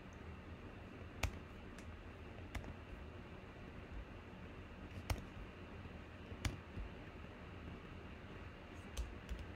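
A few scattered single clicks of computer keys and mouse buttons, spaced a second or more apart, over a faint steady hiss.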